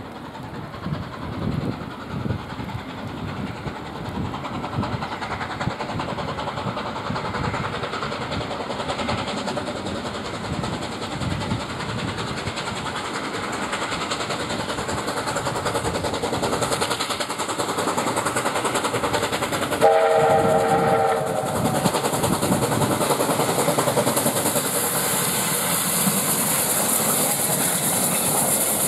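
USATC S160 2-8-0 steam locomotive No. 5820 approaching under steam, its rapid exhaust beats growing louder as it draws near. About two-thirds of the way through it sounds its whistle once, several notes together, for about a second and a half.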